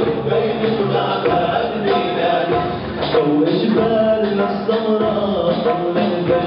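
Live amplified band music: a male vocalist singing into a microphone over electronic keyboards.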